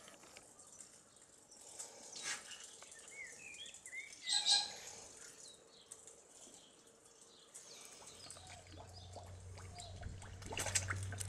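Pig rooting and drinking with its snout in a shallow muddy puddle, making soft splashing and slurping sounds, while small birds chirp now and then. A brief louder noise comes about four and a half seconds in, and a low steady hum sets in about eight seconds in.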